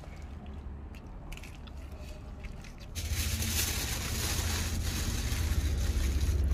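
Hands tearing apart a pit-roasted whole goat, with soft tearing and crackling of the meat and crust. About three seconds in, a louder, steady rushing noise with a deep rumble takes over.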